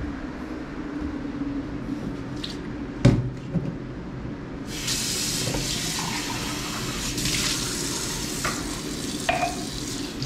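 A sharp knock about 3 seconds in, then water starts running from a kitchen tap into the sink about 5 seconds in and keeps running steadily.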